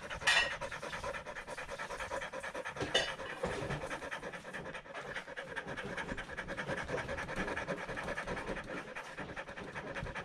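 A Kelpie panting fast and heavily: anxiety panting from fear after thunder, his 'worry pants'. Two brief louder noises come about a third of a second in and about three seconds in.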